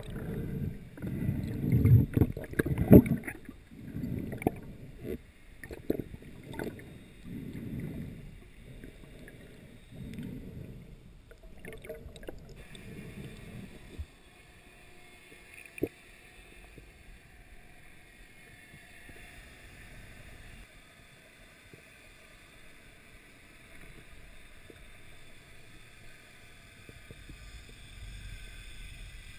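Muffled underwater water noise from a freediver swimming down with fins, in low surges about once a second. After about thirteen seconds it settles into a faint steady underwater hiss, broken by a couple of sharp clicks.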